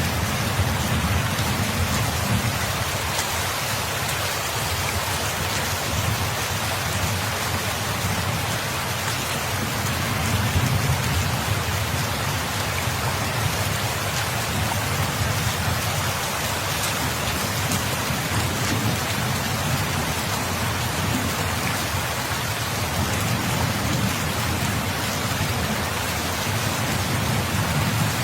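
Steady heavy rain falling, a dense even hiss of drops, with a low rumble that swells and fades underneath.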